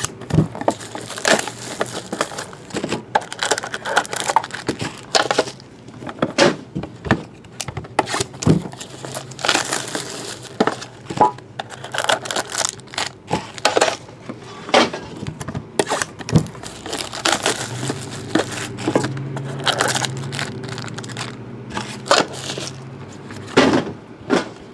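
Plastic shrink-wrap crinkling and tearing as card tins are unwrapped, with frequent sharp clicks and knocks from the tins and packs being handled.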